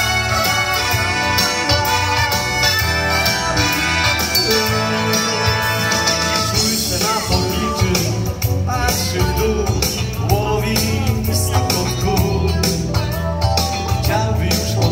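A man singing a Polish pop song into a microphone over a pre-recorded backing track, played through a pair of PA loudspeakers. The first half is instrumental with steady held notes over the bass; the voice comes in about halfway.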